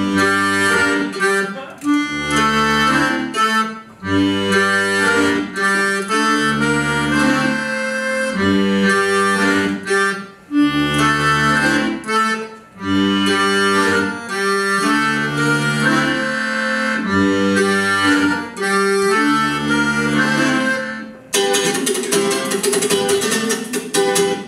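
Accordion music over a bass line that alternates two notes at an even, march-like pace. Near the end it swells into a trembling held chord that cuts off.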